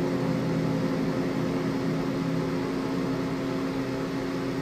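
Launch pad ambient noise around a rocket awaiting launch: a steady hum and hiss with a low, constant tone.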